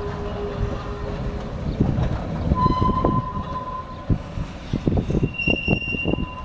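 Vintage rail grinding tram running on the track with irregular metallic clattering. A steady hum stops about a second and a half in, and two brief high, steady squeals follow, the second higher than the first.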